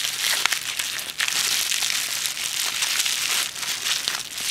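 Packaging crinkling and crackling as a new camcorder is unwrapped and lifted out of its box, a continuous run of small sharp crackles.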